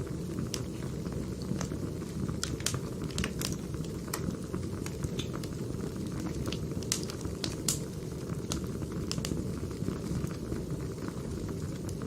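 Burning firewood crackling: irregular sharp pops and snaps over a steady low rush of the fire.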